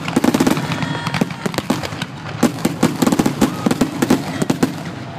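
Aerial fireworks bursting close overhead: a dense, irregular series of sharp bangs and crackling pops in quick succession.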